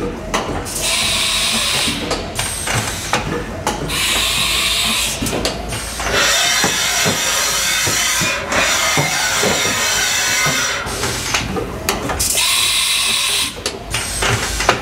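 Haas VF-3B vertical machining center running a looping test program with tool changes: several bursts of hissing of a second or more, alternating with clicks and clunks of the machine's moving parts.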